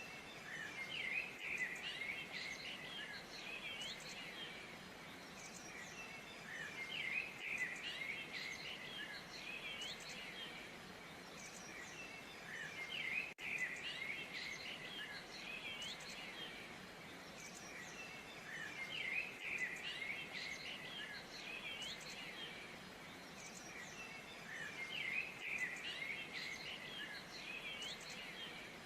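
Small songbirds chirping and twittering together in bouts of quick high chirps that come back about every six seconds, over a steady faint background hiss.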